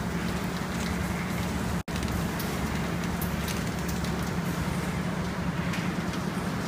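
Kraft paper bubble mailer bag making machine running steadily: a constant motor hum with light clicks now and then as the paper web feeds through its rollers. The sound cuts out for an instant about two seconds in.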